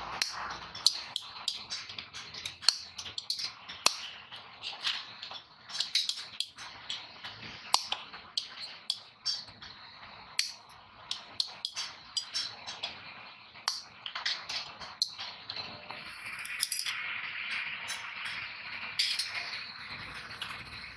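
Heavy tin snips working among the lead plates inside a lead-acid battery case: irregular sharp metallic clicks and snips. Toward the end a stretch of scraping and rustling as the plastic case is handled, then the clicks return.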